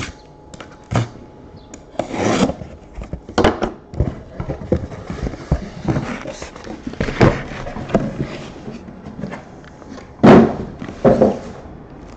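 Cardboard shipping case being opened and unpacked: irregular scraping, rustling and knocks of cardboard flaps and packed boxes. Two louder thuds with sliding come near the end as a stack of card boxes is set down on a wooden table.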